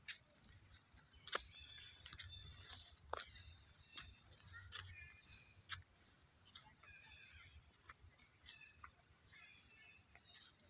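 Faint chirping of small birds in woodland, with several sharp clicks scattered among the calls, the loudest about a second and a half in.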